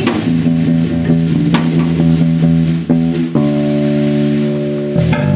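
Live rock band playing an instrumental passage with no vocals: electric bass guitar holding low notes, with a few scattered drum hits.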